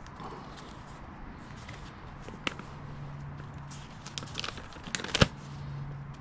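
A paper instruction sheet being unfolded and handled, crinkling with sharp crackles, the loudest about five seconds in. A low steady hum runs underneath from about three seconds in.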